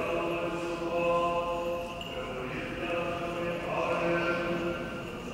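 Eastern Orthodox liturgical chant: voices singing long held notes that change pitch every second or two.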